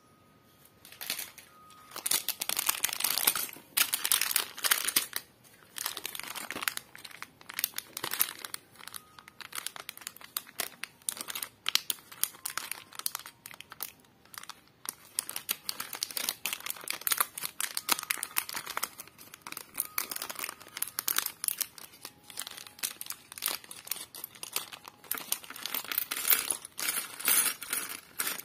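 Clear plastic bag of LEGO bricks crinkling in irregular bursts as it is handled and opened, with the small plastic bricks clicking against each other as they spill out.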